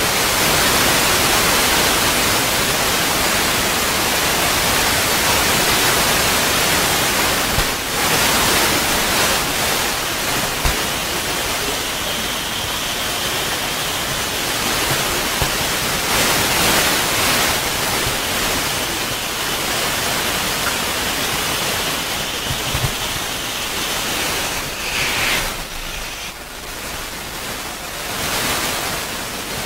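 Steady loud rushing noise like static hiss, with a faint thin high tone drifting through the middle and a few small clicks.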